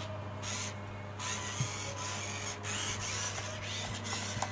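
Small servo motors of a toy AI robot dog whirring in short stop-start bursts as its legs move through a trick.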